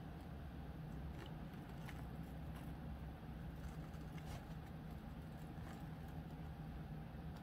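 Faint scattered ticks and light scrapes of thin 22-gauge craft wire being threaded and twisted against a metal hoop, over a steady low hum.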